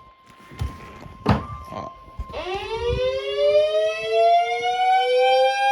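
A faint steady tone and a few sharp knocks, then, a little over two seconds in, an outdoor warning siren starts winding up, its two-note chord rising in pitch and growing louder before leveling off.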